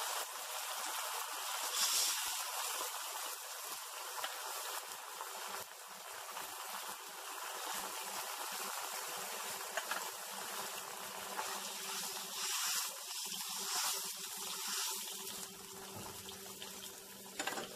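Soy sauce sizzling and bubbling steadily in a hot wok with fried aromatics and crushed rock sugar, swelling briefly a few times.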